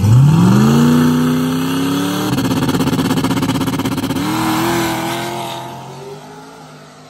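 No-prep drag car's engine revving up sharply and held at high revs, with pitch steps about two and four seconds in as the car launches and accelerates away down the track. It fades steadily over the last couple of seconds as the car pulls away.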